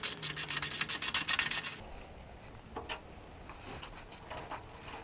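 Ratchet wrench clicking in a fast, even run, about ten clicks a second, as a 13 mm socket turns the bolt holding the motorcycle's fuel tank; it stops about two seconds in, leaving a few faint knocks.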